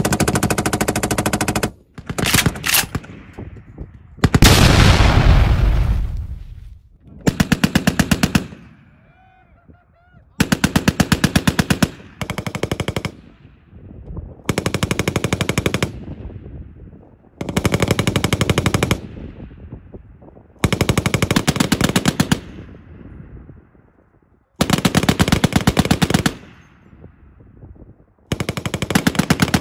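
Belt-fed heavy machine gun firing repeated bursts of automatic fire, each about one and a half to two seconds long, with a pause of a second or two between them. About four seconds in there is one louder, deeper rumbling blast.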